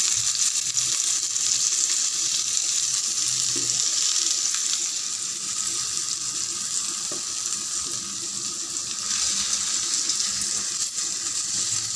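Stuffed okra (ladies' finger) sizzling steadily as it shallow-fries in oil in a stainless steel kadai, its first side cooked. A wooden spatula turns the pieces, with a few light knocks against the pan.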